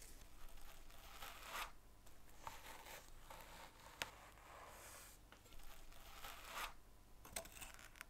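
Old cotton wadding being pulled and torn out of a vintage table lighter's fuel chamber: faint tearing and rustling in about five short pulls, with a sharp click about four seconds in.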